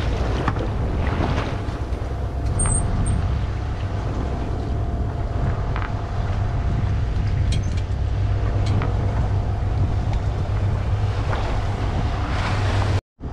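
Boat's inboard engine running steadily with a low hum, water rushing along the hull and wind buffeting the microphone.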